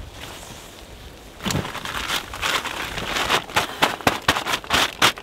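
Irregular crunching, rustling and clicks from camp gear being handled, with steps in icy snow. The sound starts about a second and a half in and comes thick and uneven after that.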